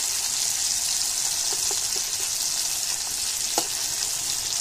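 Fish pieces sizzling steadily as they shallow-fry in hot oil in an aluminium kadai, with a few light taps and scrapes of a metal spatula against the pan as the pieces are turned.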